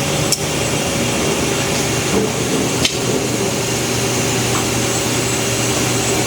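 Haas DT-1 5-axis CNC machine running as its Koma TN101 trunnion table tilts and rotates: a steady mechanical hum and whine from the axis drives, with two sharp clicks, one about a third of a second in and one just under three seconds in.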